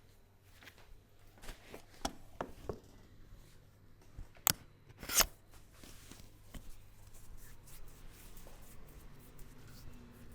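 Head massage: sharp hand slaps and clicks on the head and neck with soft rubbing between, a few around two seconds in, then the loudest, a single sharp crack about four and a half seconds in and a slightly longer slap just after.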